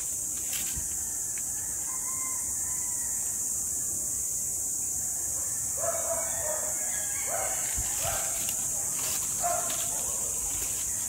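A rooster crowing about six seconds in, with shorter calls a little later, over a steady high hiss. Footsteps and rustling in dry leaves and brush.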